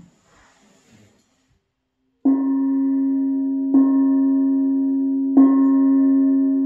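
Small hanging gong struck three times with a mallet, about a second and a half apart, each strike setting off a steady, sustained ringing tone that overlaps the next.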